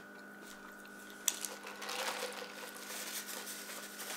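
Quiet chewing of a burger and rustling of a paper napkin and wrappers, with one sharp click about a second in, over a steady hum.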